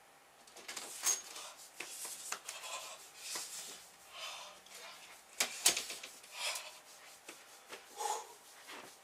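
Irregular rustling and rubbing with scattered sharp clicks, the loudest about five and a half seconds in, as a bedroom door is handled and someone walks into the room.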